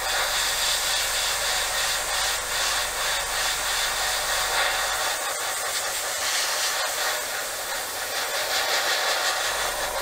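Gravity-feed airbrush spraying thinned sand-coloured paint: a steady hiss of air and paint mist.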